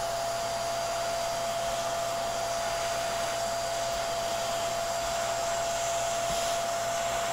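Vacuum cleaner with a hose attachment running steadily, sucking loose coffee grounds out of an espresso grinder's burr chamber around the bottom burr. A steady rushing of air with a thin whine above it.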